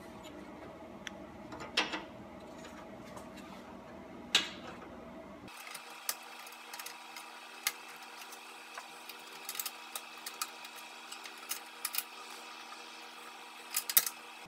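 Scattered clicks and taps of a sheet-metal bracket being handled and fitted against the car's front bumper support. There are two louder knocks in the first half and a quick cluster of clicks near the end.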